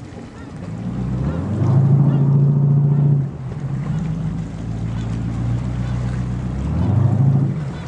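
A boat engine running with a low steady hum. The revs rise about a second in, ease back a little after three seconds, rise again near seven seconds and drop near the end.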